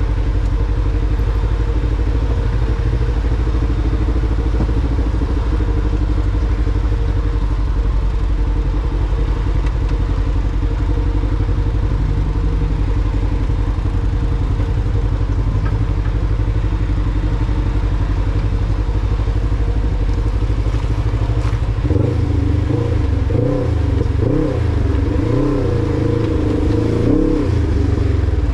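Off-road vehicle engine running steadily at low speed. About 22 seconds in its pitch starts rising and falling over and over as it is revved.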